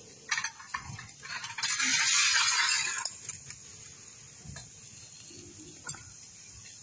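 Meat grilling on a wire rack over a charcoal fire: a few light clicks, then a hiss lasting over a second, about a second and a half in.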